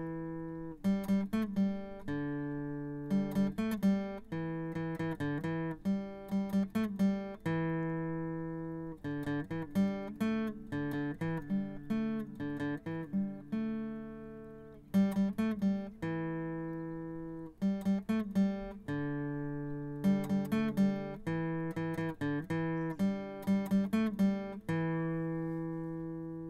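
Acoustic guitar music: quick clusters of plucked notes, each followed by a chord left ringing and fading, in a repeating pattern.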